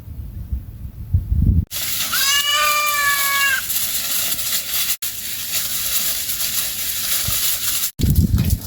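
A goat bleats once, a single call of about a second and a half, over a steady hiss; a low rumble comes before and after it.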